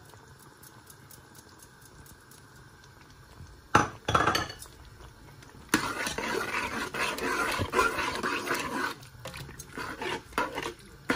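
Metal spoon stirring yogurt into a watery onion and tomato mixture in a metal cooking pot. A sharp clink of spoon on pot comes about four seconds in, then about three seconds of continuous scraping and sloshing, then a few scattered taps near the end.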